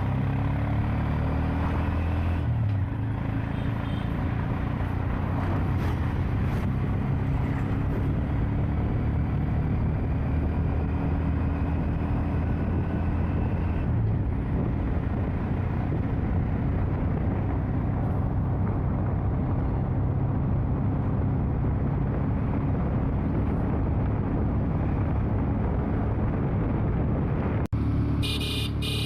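Vehicle engine running at a steady speed with tyre and road noise, heard from the moving vehicle. There is a brief break near the end.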